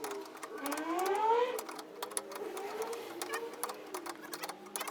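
Small electric air compressor (tire inflator) running with a fast rattle and steady hum, pumping up the flat front tire. A rising whine comes in briefly about a second in.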